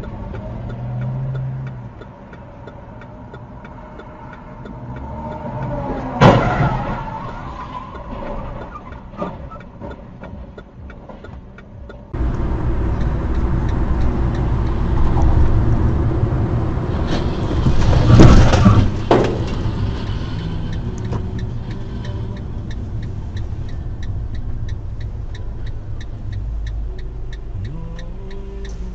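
Car driving noise with two loud crash impacts, a sharp one about six seconds in and a longer one around eighteen seconds in; the road noise changes abruptly about twelve seconds in.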